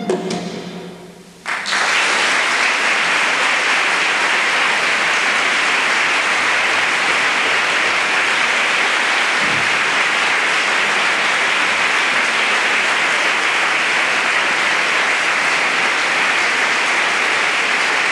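The ensemble's last held note fades away, and about a second and a half in an audience starts applauding, a dense, steady clapping that carries on without letting up.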